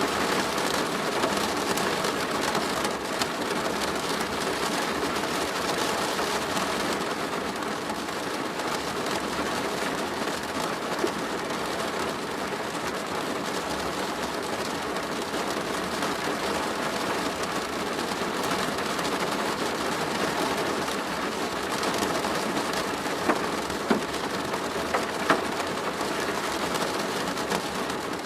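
Steady rain falling on a plastic roof: a dense, even patter of drops, with a few louder single drops near the end.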